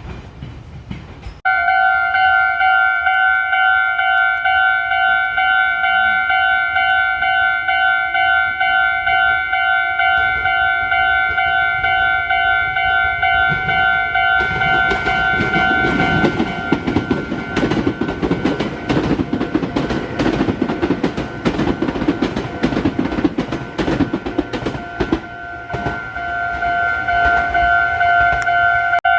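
A Japanese level crossing's warning bell starts ringing about a second and a half in and keeps ringing. From about halfway, a Meitetsu μSKY (2000 series) electric train passes slowly over the crossing, its wheels clattering and rumbling over the rail joints. The clatter dies away a few seconds before the end while the bell rings on.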